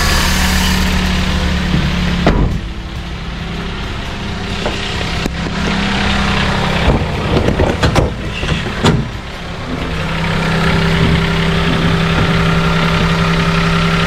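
Daihatsu Hijet Cargo's three-cylinder engine idling steadily, with a few knocks and thumps between about two and nine seconds in.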